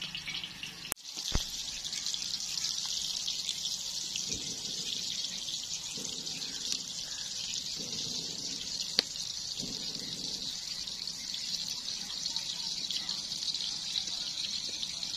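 Steady high-pitched sizzle of hot oil around minced-beef chapli kababs shallow-frying in a karahi, with a sharp click about a second in.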